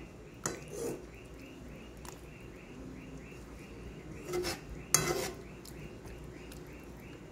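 Slotted spatula scraping and knocking against a cooking pot while mashing a thick, simmering tomato-and-chili sambal. A few clatters come about half a second and a second in, and a louder cluster comes around five seconds.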